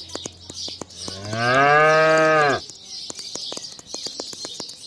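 A cow moos once: a long, low call that swells and rises in pitch about a second in, then stops abruptly after about two and a half seconds. Scattered light clicks and faint high bird chirping are heard behind it.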